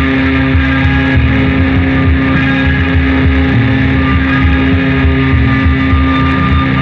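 Loud, dense instrumental noise-rock led by electric guitars, with a steady held drone tone under a thick, churning mass of sound.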